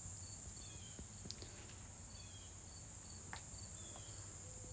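Faint, steady high-pitched drone of insects singing in summer foliage, with short repeated chirps over it and a couple of soft clicks.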